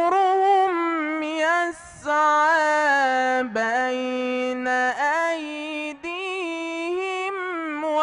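A young male Quran reciter's solo voice in melodic tajweed recitation, holding long ornamented notes that step up and down, with a brief break about two seconds in and a drop to a lower pitch about halfway through.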